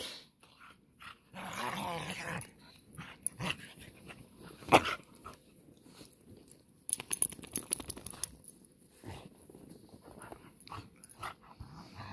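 Two beagles play-fighting in snow: a drawn-out dog growl about a second and a half in, then scuffling and scattered short dog noises, with a sharp click near the middle.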